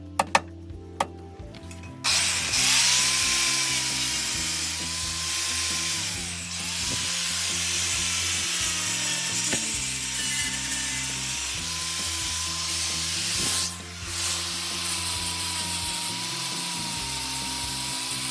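A power tool starts about two seconds in and runs with a hiss and a high whine, the whine dipping in pitch twice. Background music plays underneath.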